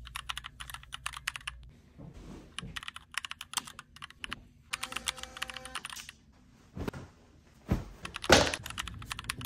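Computer keyboard typing clicks in three quick bursts, a typing sound effect laid under captions that type out on screen letter by letter. A few louder dull thuds follow near the end.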